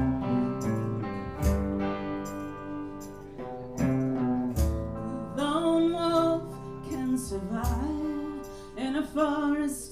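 Live acoustic guitar strumming chords, with a voice singing a slow song from about five and a half seconds in.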